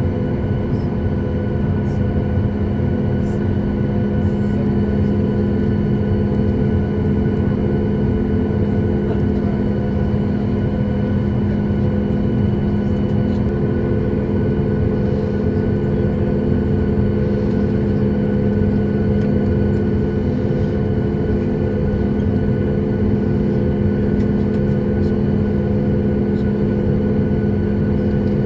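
Steady cabin drone inside a Boeing 737 MAX 8 waiting on the ground with its CFM LEAP-1B engines at idle: a constant low hum with several steady tones, unchanging throughout.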